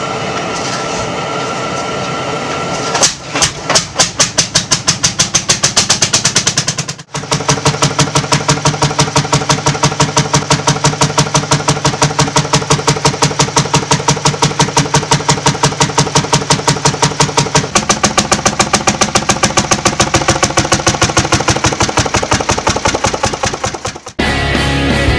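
Ursus C-45 tractor's single-cylinder two-stroke hot-bulb engine starting for the first time in 40 years: after a few seconds of steady hiss it fires with uneven beats, then settles into a steady single-cylinder beat of about five a second. Music cuts in near the end.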